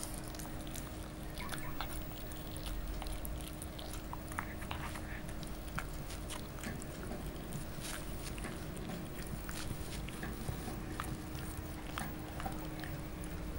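French bulldog puppy chewing and gnawing a piece of chicken, with irregular wet smacks and clicks of its jaws.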